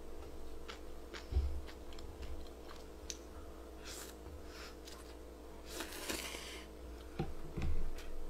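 A person eating naengmyeon (Korean cold noodles in broth) with metal chopsticks: scattered small clicks and mouth sounds, with a longer slurp of the noodles a little past the middle and a few soft knocks.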